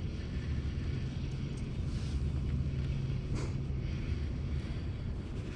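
Boat motor running at a steady low hum while the jon boat trolls.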